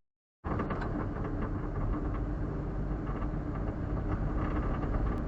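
Suzuki Super Carry kei truck running with a steady low engine and road rumble, starting about half a second in, with a few faint irregular clicks.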